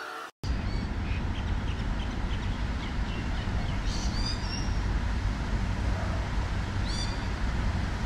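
Birds calling: a run of short high chirps in the first few seconds, then high, falling calls about four and seven seconds in, over a steady low rumble.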